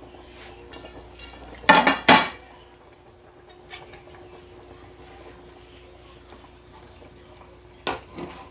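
Metal cookware clatter: a burst of loud ringing clangs about two seconds in, then a ladle knocking against a large aluminium cooking pot twice near the end. A faint steady hum runs underneath.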